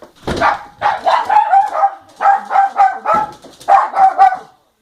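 A dog barking loudly at the door in quick volleys, about a dozen barks in four or five short runs.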